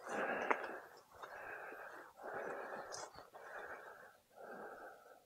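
A person breathing heavily close to the microphone: five breath sounds, about one a second.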